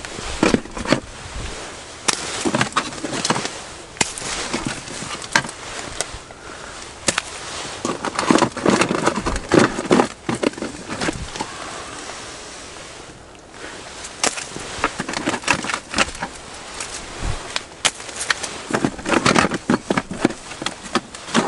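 Rummaging in an open plastic fishing tackle box: irregular clicks, knocks and rattles of plastic and small gear, with rustling in between, and a quieter spell about halfway through.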